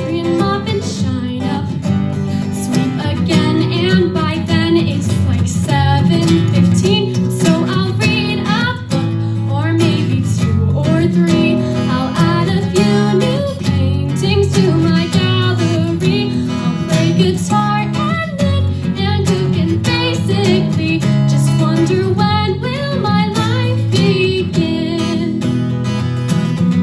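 A woman singing over a strummed acoustic guitar accompaniment.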